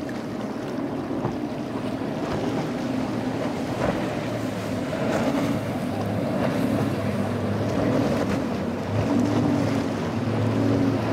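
Outboard engines of a center-console boat running at speed, a steady motor drone, with water spray off the hull and wind on the microphone.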